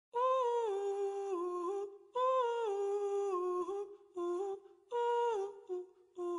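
Unaccompanied humming at the start of a soundtrack song: a single voice hums a melody in short phrases of one to two seconds, each sliding down in pitch, with brief pauses between them.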